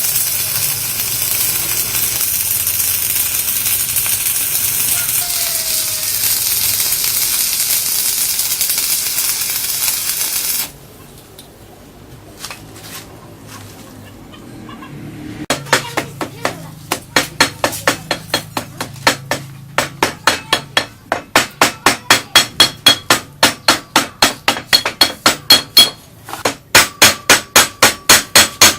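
A steady hissing machine noise with a low hum that cuts off suddenly about ten seconds in. A few soft clicks follow, then a hammer striking metal, about three blows a second with a ringing tone, speeding up and growing louder.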